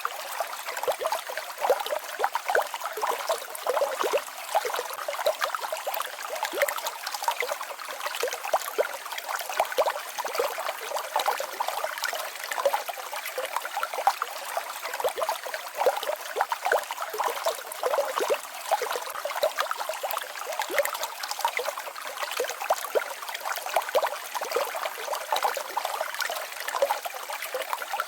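Small stream babbling and trickling over rocks, a steady bright splashing with many small irregular gurgles and no deep rumble.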